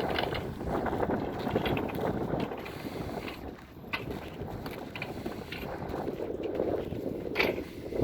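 A vehicle driving on the road, with a rough rumble and wind buffeting the microphone. There are a few sharp knocks, one near the middle and a louder one near the end.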